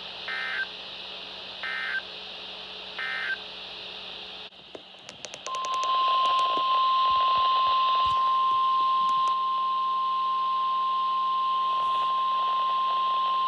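Three short bursts of EAS digital data, the end-of-message code that closes a weather radio alert, over steady radio hiss. After a few clicks, the steady 1050 Hz NOAA Weather Radio warning alarm tone starts about five and a half seconds in, announcing the next alert.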